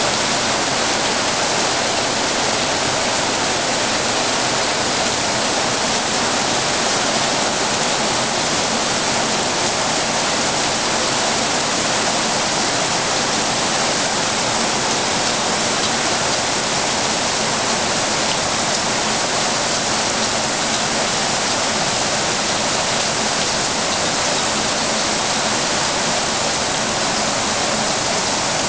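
Heavy rain pouring down steadily, hissing on paving, foliage and a swimming pool.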